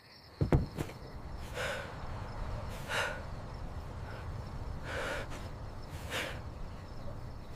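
A dull thump about half a second in, then four breathy puffs, breaths or sniffs, a second or two apart, over a low steady hum.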